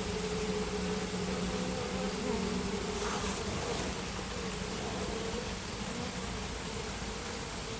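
A small honeybee colony humming steadily in an opened wooden box hive. The keeper judges the colony too weak to overwinter.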